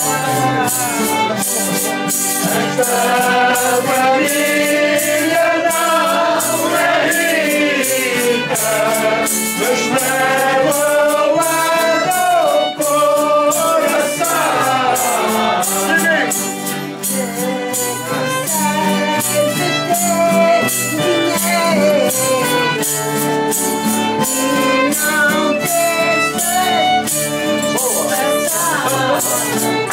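Traditional Azorean folia group singing a Janeiras song, with fiddle and an even, jingling percussion beat throughout.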